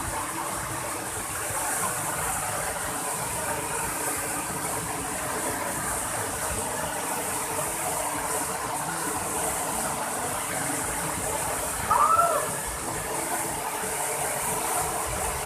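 Waterfall rushing: a steady, even roar of falling water with a strong hiss. A brief rising-and-falling call sounds once near the end.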